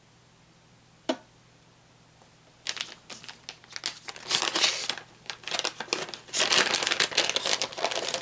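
A single sharp click about a second in, then about five seconds of plastic crinkling and rustling as a soft-plastic bait packet is handled.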